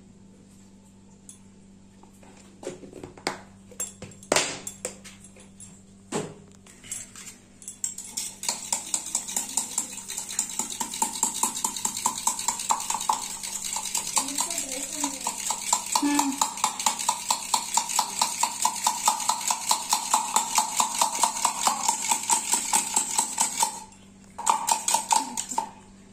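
Wire balloon whisk beating eggs in a stainless steel tumbler: a fast, even clatter of the wires striking the metal sides. It starts about 8 s in, after a few separate knocks, stops briefly near the end, then goes on again.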